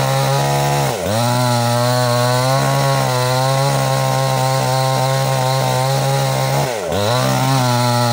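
Chainsaw engine running steadily at high revs, its pitch dipping sharply and recovering twice, about a second in and again near the end.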